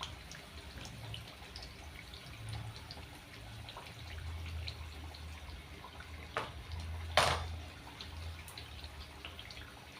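Mandazi deep-frying in hot oil, a steady sizzle with small crackling pops. Two louder knocks are heard about six and seven seconds in.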